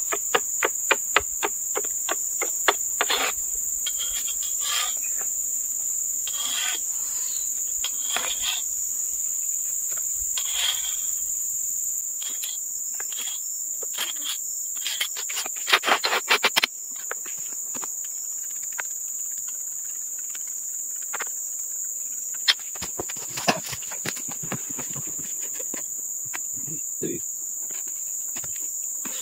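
Steady high-pitched chirring of insects, with scattered clicks and knocks throughout and a quick run of louder knocks about halfway through.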